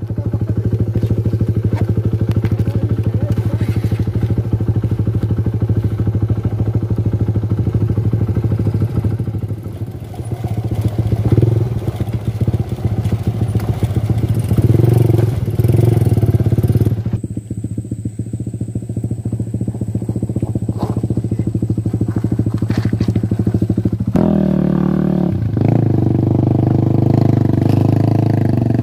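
Small motorcycle engine running steadily at low revs on a rough, rocky trail, with knocks and rattles from the bike jolting over stones. About two-thirds through, the engine note drops and then settles again.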